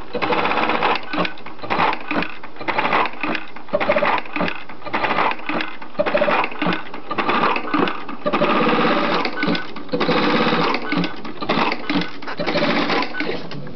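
Programmable pattern sewing machine stitching a design into fabric held in a clamp frame: a fast, busy run of needle strokes in uneven pulses, getting quieter near the end.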